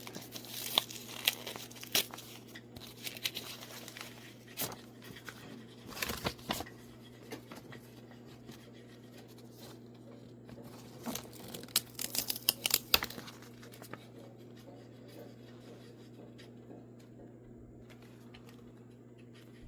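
Mail packaging being torn open and crinkled by hand, in short rips and rustles that are busiest over the first thirteen seconds or so and then go quieter. A steady low hum runs underneath.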